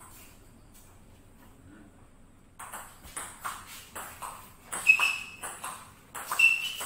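A table tennis rally: after a couple of quiet seconds, the ball clicks off the paddles and the table in quick alternation, about two hits a second. A couple of short high squeaks come in among the hits.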